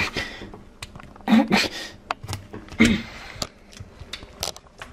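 Plastic scoop scraping and clicking against hard ice cream and the sides of a plastic tub, in a run of short sharp scrapes and knocks, with two brief vocal sounds.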